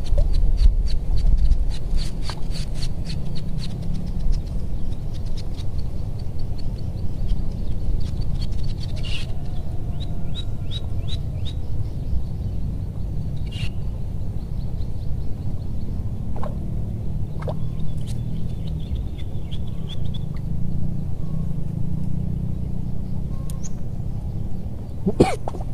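Wind buffeting the microphone in a steady low rumble, with birds chirping in rapid series of short high notes in the background, mostly in the first third and again around the middle. A sharp knock near the end.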